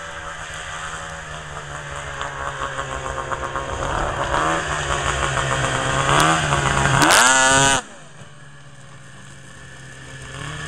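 Two-stroke 800 engine of a Ski-Doo Sno Pro race snowmobile running and revving in rising sweeps, growing louder. About eight seconds in it drops off suddenly to a much quieter steady engine sound, which starts building again near the end.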